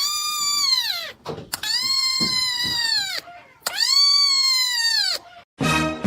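A cat yowling: three long, drawn-out meows, each holding high and then falling away at the end. Just before the end, a different, lower, buzzy sound begins.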